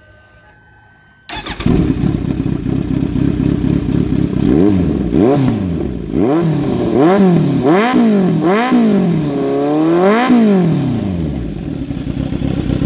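Kawasaki Z900 inline-four through a carbon SC-style slip-on muffler, started about a second in and idling, then blipped quickly about seven times with the last rev held longer, before settling back to idle. The tone is very even, with no rattle or buzz from the muffler.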